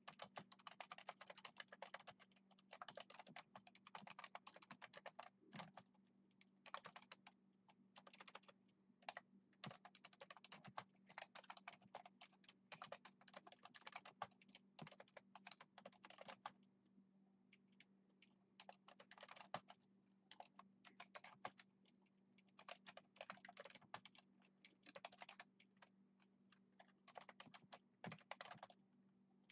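Typing on a computer keyboard: quick runs of key clicks in bursts, broken by short pauses, over a faint steady low hum.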